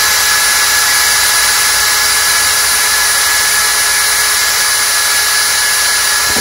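Cordless drill running steadily at full speed with an even whine, boring a small 5/64-inch pilot hole through a thin 3/16-inch wood board.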